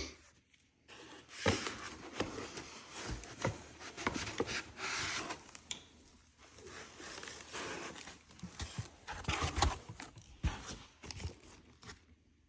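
Packaging being handled and torn open: irregular rustling, crinkling and tearing with scattered knocks, dying away near the end.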